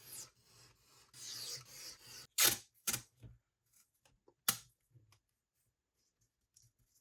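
Hand tools working leather: two scratchy rubbing strokes across the leather, then a few sharp clicks and knocks about two and a half and four and a half seconds in, and then near quiet.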